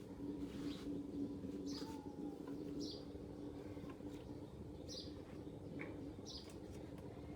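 A bird chirping: short high calls repeated every second or two, over a steady low hum.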